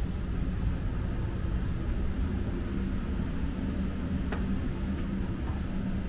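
Steady low rumble of city street background, traffic noise without distinct events, with a faint steady hum in its second half and a single short click about four seconds in.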